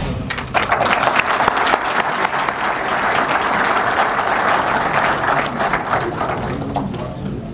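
An audience applauding, a dense crackle of many hands clapping that swells about half a second in and starts to fade near the end.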